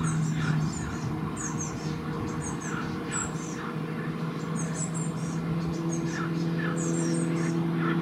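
Small songbirds chirping in short, high phrases about once a second, over a steady low mechanical hum.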